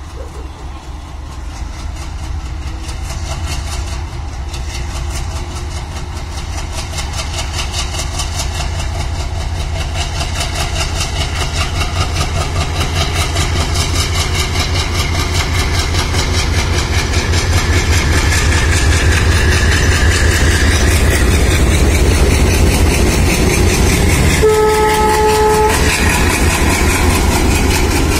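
WDG-3A diesel-electric locomotive's ALCO 16-cylinder engine working hard as it pulls a passenger train out of the station, its pulsing exhaust growing steadily louder as it approaches and passes. One short horn blast of about a second comes near the end.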